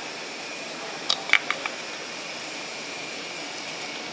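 Steady fan-like background noise, with three or four short light clicks a little over a second in, as of parts or tools being handled during assembly.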